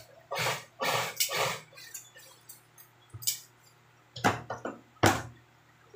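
Workbench handling noises: three quick rasping sounds in the first two seconds, then a few sharp clatters near the end, from upholstery material and tools being handled on a cutting table.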